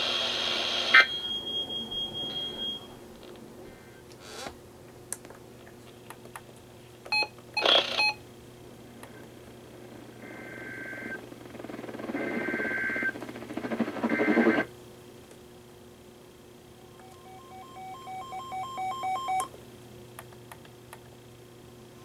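Weather alert radios beeping as their buttons are pressed: a cluster of clicks and short beeps partway through, then a quick run of short electronic beeps from a Sangean CL-100 near the end. In between, the radio speaker gives three short bursts of a two-note tone over a hiss.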